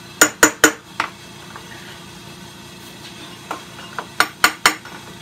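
Sharp metallic clinks and taps as a hand tool knocks against a dirt bike's clutch cover while it is being worked loose. A quick cluster of four in the first second, then another run of taps near the end.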